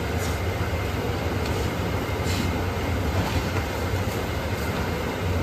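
Steady low machine hum and rumble, with a few soft papery rustles as thin roti sheets are lifted and folded over the stack.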